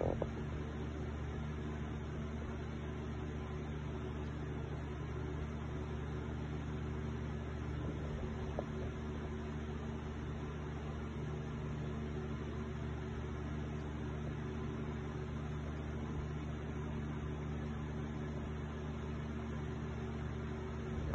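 Steady low machine hum made of several fixed tones, unchanging throughout.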